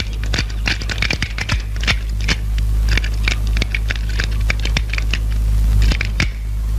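Quick, irregular metallic clicks and rattles from a bicycle being worked on by hand, first at its wheel and then at its frame lock, which is jammed and will not open, over a steady low hum.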